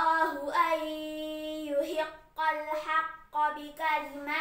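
A girl's voice reciting the Quran aloud in melodic tartil style, drawing out long held notes that bend slowly in pitch. She pauses for breath about two seconds in and again about a second later before carrying on.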